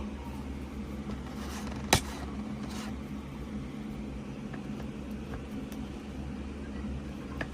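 Steady low background hum with faint handling rustles and a single sharp click about two seconds in, as plastic figure parts are handled and fitted together.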